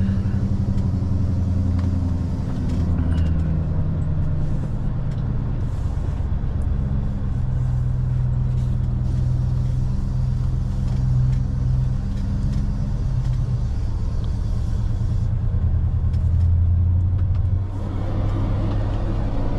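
Scania V8 diesel engine of a loaded log truck running at low revs as the truck creeps into the sawmill yard. A steady low drone that shifts in pitch a few times, with a brief dip near the end.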